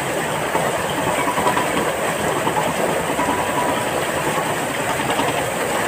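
Water gushing and splashing heavily as the buckets of a powered Persian-wheel-style water lifter pour it into a brick channel: a steady, unbroken rushing.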